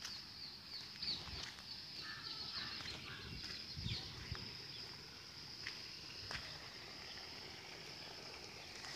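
Quiet rural outdoor ambience: birds chirping now and then over a steady high-pitched drone, with a few faint low knocks.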